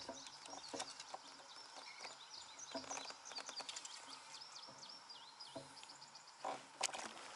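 Wild birds chirping and singing continuously along the river, many short high calls overlapping, with scattered light clicks and two brief bursts of noise near the end.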